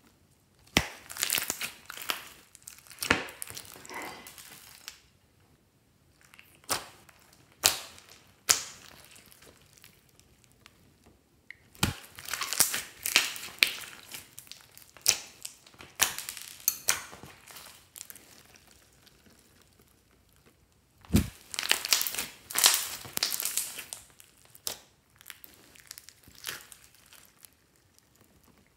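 Handfuls of glossy slime mixed with clay, foam and plastic beads being squeezed, stretched and folded, giving irregular bursts of sticky crackling with a few sharp snaps and quiet gaps between.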